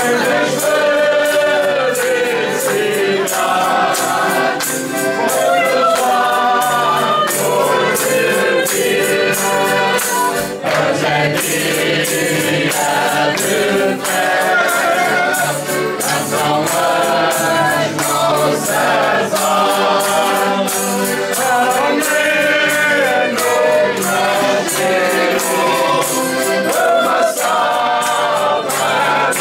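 A folia group singing Janeiras, several voices together in chorus over a steady beat of percussion strikes.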